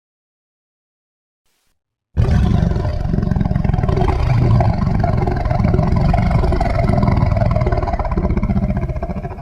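Designed kaiju dragon roar: animal and monster roar samples pitched up so the creature sounds female. After about two seconds of silence it starts suddenly as one long rough roar with a heavy low rumble, holding for about seven seconds and fading at the very end.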